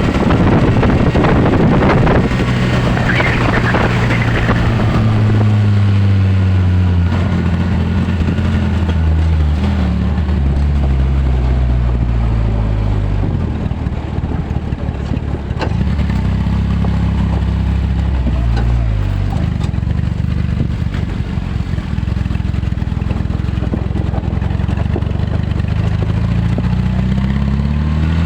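A motor vehicle's engine running, its pitch rising and falling several times as the revs change, with a rushing noise over it in the first few seconds.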